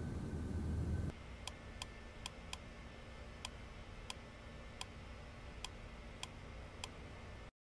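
A clock ticking in a quiet, empty room: sharp single ticks, roughly one a second but unevenly spaced, over a faint hum. Before the ticking, a low steady room rumble cuts off about a second in.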